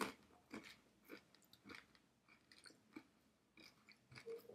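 Faint chewing of a small whole spicy crab snack, shell and all, at about two chews a second.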